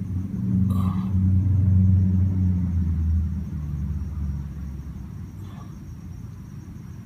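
Low engine rumble of a passing motor vehicle, swelling about two seconds in and then fading away.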